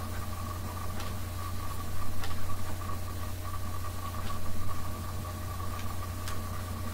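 A steady low hum with a thin high whine, with a few light knocks and handling sounds as a cordless circular saw is set against a straightedge guide on a plywood sheet. The saw is not cutting.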